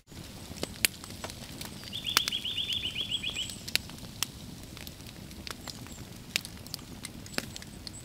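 Light pattering and scattered sharp ticks of snow dropping from trees. About two seconds in, a small bird gives a quick trill of high repeated notes lasting over a second.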